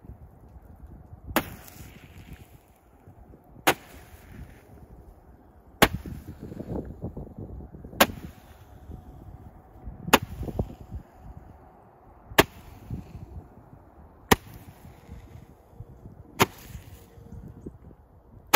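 A handheld Mega Banger 10-shot Roman candle firing eight shots, one about every two seconds, each a sharp pop followed by a brief hiss.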